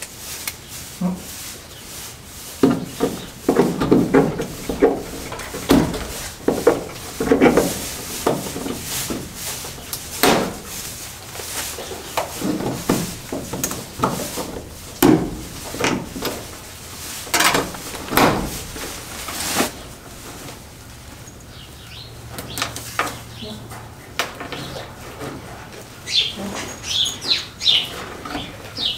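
Irregular knocks and clatter for most of the stretch, then a bird chirping repeatedly near the end.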